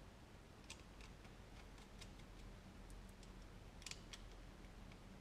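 Faint, scattered small metallic clicks of nuts and washers being handled and threaded by hand onto cylinder head studs, with a couple of sharper ticks about four seconds in.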